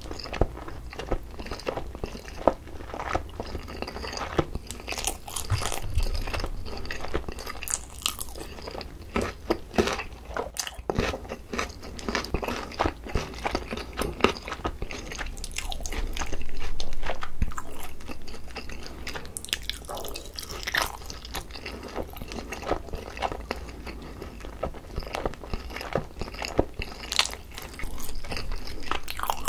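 Close-miked chewing and biting of sticky glazed, grilled boneless chicken, with wet mouth clicks and smacks. There is one louder stretch of about a second past the middle.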